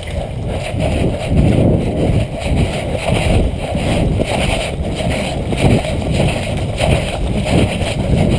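Rustling and thumping noise from gear and clothing rubbing over a body-worn microphone, in irregular pulses a few times a second, as of a player moving.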